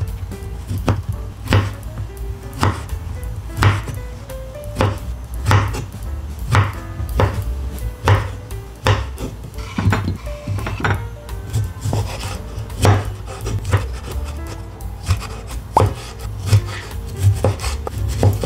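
Kitchen knife cutting through tempeh and tomatoes on a wooden cutting board, each stroke ending in a sharp knock on the board, about once a second. Background music plays underneath.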